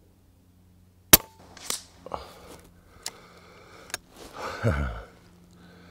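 Daystate Redwolf PCP air rifle firing a single slug about a second in, a sharp crack, followed by a few short mechanical clicks as the action is worked for the next shot. Near the end comes a short, louder low sound that drops in pitch.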